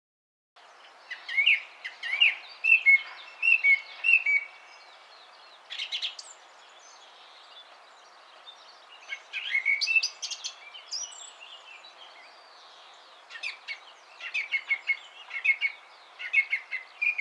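Song thrush singing: bouts of loud, clear phrases in which the same short notes are repeated several times, broken by pauses of a second or two.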